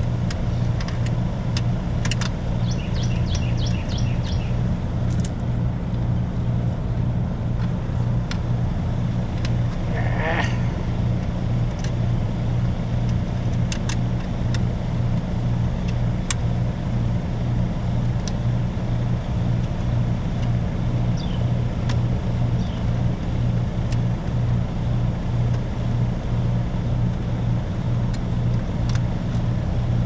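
Steady low electrical hum and drone of a running package heat pump unit, its compressor and fan going, with light clicks of control wires being handled in its open panel.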